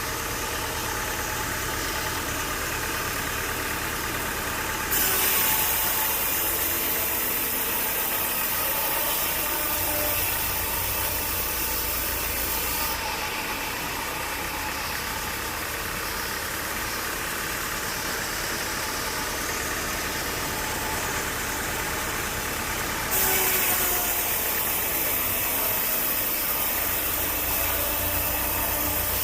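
Sawmill machinery running steadily with a low engine hum. A harsh high hiss comes in suddenly about five seconds in, drops out about thirteen seconds in, and returns near the end.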